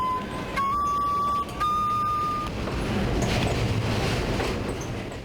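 A flute plays a few long held notes, then stops about two and a half seconds in. Meanwhile the rumble and rattle of a subway train grows louder and becomes the main sound.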